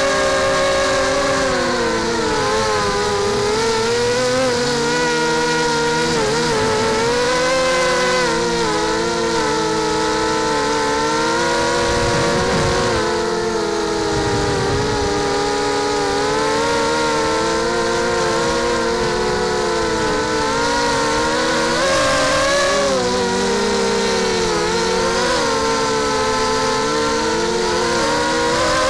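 Brushless motors (Tiger 1806 2300KV) spinning 5x3 propellers on a mini H quadcopter in flight, heard from its onboard camera: a steady whine whose pitch rises and falls with throttle.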